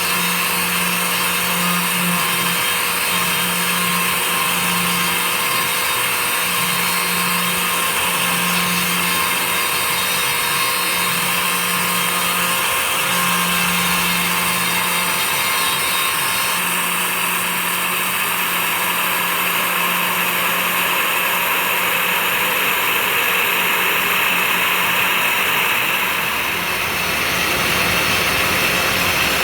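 CNC 3018 Plus desktop router's spindle milling, with a dust extraction vacuum running steadily; a low hum rises and falls every second or two as the cut goes on, and the sound shifts briefly about 26 seconds in.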